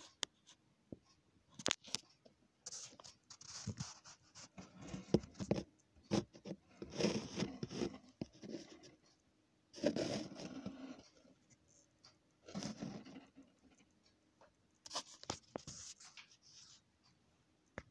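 Handling noise: irregular bursts of scraping and rubbing with scattered sharp clicks, as the resin scale-model truck and the phone filming it are handled.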